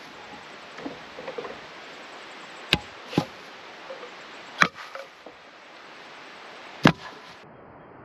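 Split firewood logs being unloaded from a 4WD's roof rack and dropped to the ground, giving four sharp wooden knocks: two close together about three seconds in, then one near five seconds and one near seven.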